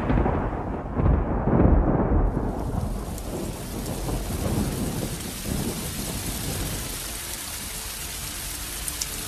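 A roll of thunder rumbling and dying away over the first few seconds, with heavy rain hissing steadily on roofs and water as it fades.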